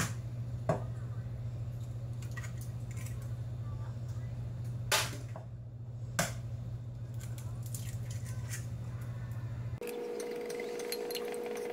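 Eggs cracked against the rim of a glass mixing bowl: a few sharp cracks, two close together at the start and two more about five and six seconds in. Under them runs a steady low hum, which gives way near the end to a higher steady hum.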